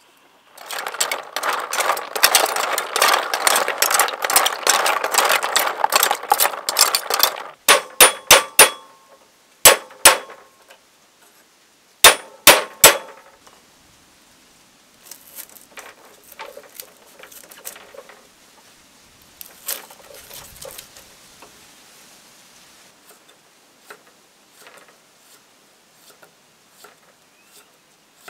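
Stream snail shells clattering and grinding against each other as they are jostled in a basin of water, followed by a run of sharp, ringing knocks. After that, a knife slices lemongrass and ginger on a wooden chopping board with quiet, scattered taps.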